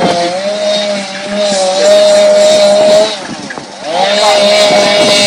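Two-stroke chainsaw running at high revs, easing off and dropping in pitch about three seconds in, then revving back up.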